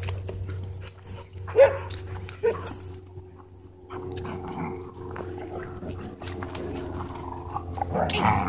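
Dogs wrestling in rough play, with two short loud barks about a second and a half and two and a half seconds in, and more dog noise near the end.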